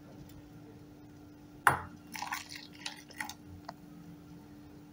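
Ground green chutney paste being emptied from a steel mixer-grinder jar into a steel bowl. A sharp knock about a second and a half in, then a run of irregular wet splashing and dripping as the thick paste and liquid pour out.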